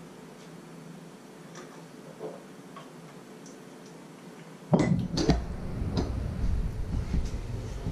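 A few faint ticks, then a sudden cluster of sharp knocks about five seconds in as a ceramic cup is handled and set down on a wooden cutting board, followed by a low rumble with smaller knocks.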